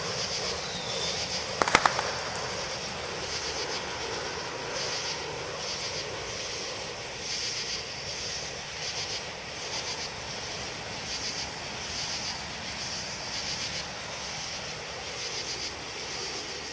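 Insects chirping in a pulsing rhythm, roughly two pulses a second, over a steady low rush of background noise, with a sharp double click about two seconds in.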